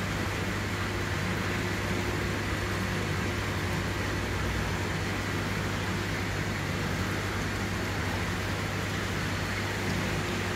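Steady low hum with an even hiss from a running reef aquarium system: its pumps and water flow.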